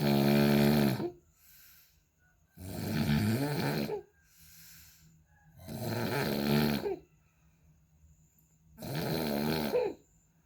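A person snoring loudly, likened to a racing exhaust. There are four long, pitched snores about three seconds apart, with a softer breath between each.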